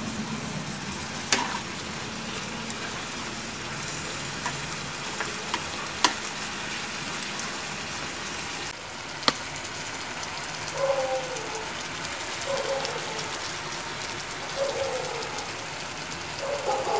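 Beef cubes and bell peppers sizzling in hot oil in a wok, a steady hiss, with a few sharp clicks of chopsticks against the wok as the food is stirred.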